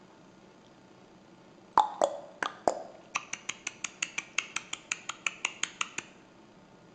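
Sharp clicks: four loud ones about two seconds in, then a quicker, even run of about six a second lasting three seconds, stopping about a second before the end.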